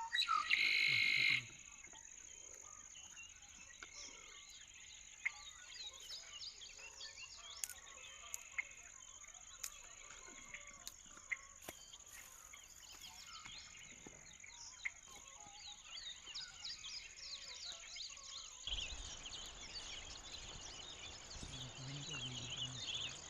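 Outdoor rural ambience: many small birds chirping over a steady high-pitched insect drone. A loud, noisy sound about a second long opens it.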